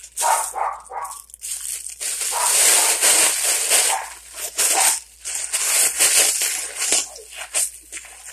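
Foil helium balloon crinkling in the hands, then a long rushing hiss as helium is sucked out through its neck by mouth, with a second, shorter hiss a little later.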